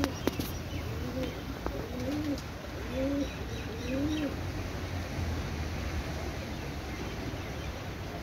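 Pigeon cooing: a run of short coos that rise and fall in pitch, stopping about halfway through, over a steady low rumble.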